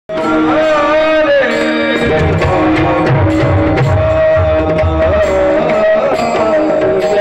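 Live Marathi kirtan music: a sung devotional melody over long held tones, with drum beats coming in about two seconds in and regular sharp strikes keeping time.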